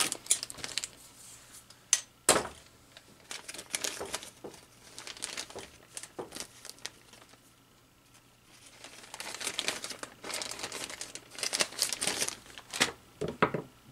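Plastic parts bag being cut open with scissors and crinkling as it is handled, with a couple of sharp snaps about two seconds in and bursts of crackly rustling after.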